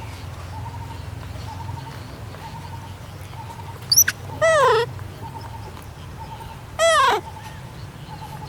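Baby macaque calling: a brief sharp chirp about four seconds in, then two short whimpering calls that slide down in pitch, about two and a half seconds apart.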